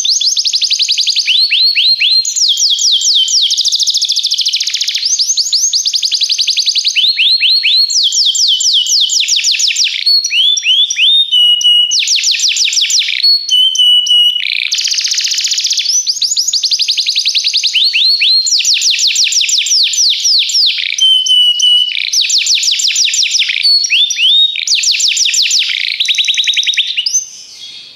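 Domestic canary (canário belga) singing a long, loud song of rapid trills, switching every second or two to a new run of repeated notes, with a few short steady whistled notes between; the song stops about a second before the end.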